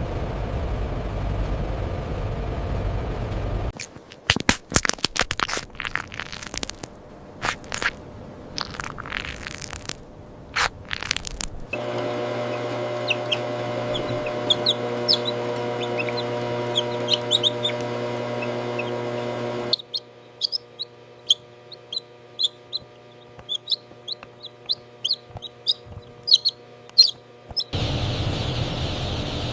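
Many young chicks peeping in short, high chirps over the steady hum of hatchery machinery. The background changes abruptly a few times, from a plain rushing noise to sharp clicks and then to the humming machine.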